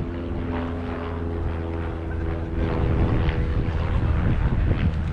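Propeller airplane engine running steadily, growing louder about halfway through.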